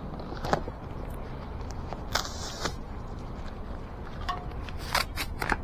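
Hands working an e-bike's rear tire and its plastic thorn-resistant liner strip: scattered clicks and a short scraping rub about two seconds in, with a quick cluster of clicks near the end, over a low steady background rumble.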